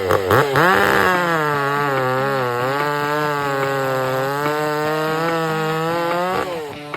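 Small petrol engine revving up sharply within the first second, held at high revs with slight wobbles in pitch, then dropping back near the end.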